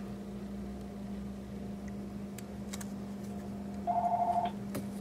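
A steady low electrical hum with a few faint clicks; near the end, a short burst of a warbling two-tone electronic ring, the next ring in a cadence that stopped just before.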